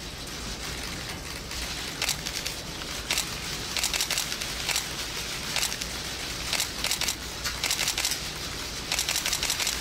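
Theatre audience waiting in a hush: steady rustling with scattered small crackles and clicks.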